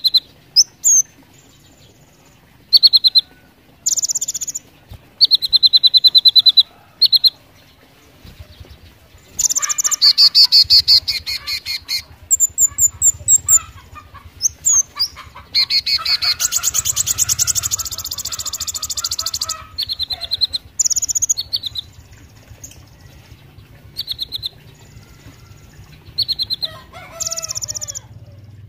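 Van Hasselt's sunbird (kolibri ninja) singing: short phrases of sharp, high chirps and fast repeated notes, broken by brief pauses, with two longer, dense rapid trills in the middle.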